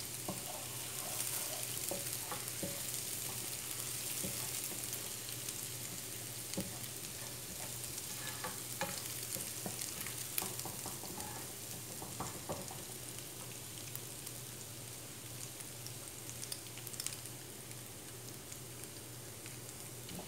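Chopped garlic sizzling in hot olive oil in a non-stick frying pan: a steady frying hiss, broken by short scrapes and taps as a plastic slotted spoon stirs the pan now and then.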